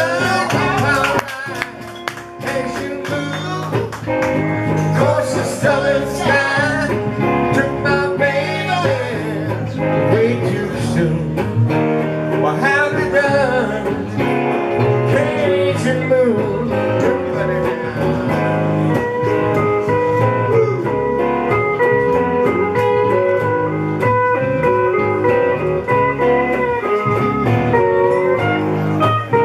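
Live music led by a hollow-body electric guitar, with notes bending up and down in the first half and steadier held notes later.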